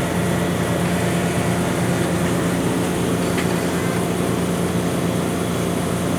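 Automated ice vending machine running with a steady mechanical hum, with a few faint ticks.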